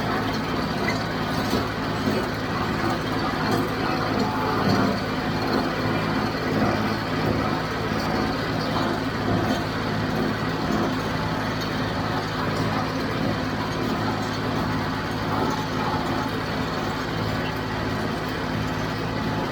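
Diesel engine of a John Deere utility tractor running steadily at working speed, powering a John Deere 348 small square baler that is baling hay.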